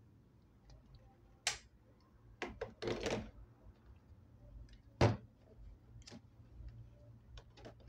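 Light knocks and clicks of things being handled on a desk, the loudest about five seconds in and another as a small plastic digital timer is set down on the table, over a faint low hum.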